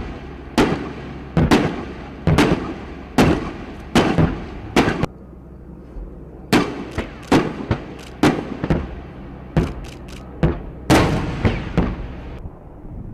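Weapon fire: about two dozen sharp shots, irregular and often in pairs or quick clusters, each ringing on briefly, over a steady low engine hum. The shots thin out about five seconds in and stop near the end.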